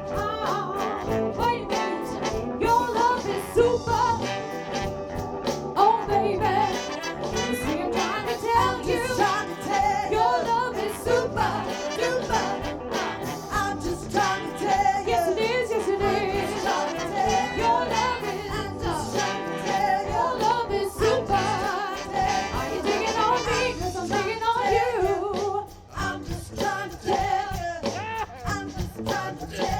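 Live soul band playing with a horn section of saxophone, trombone and trumpet over drums, bass and keyboard, with sung vocals. The band briefly drops away about twenty-five seconds in, then picks up again.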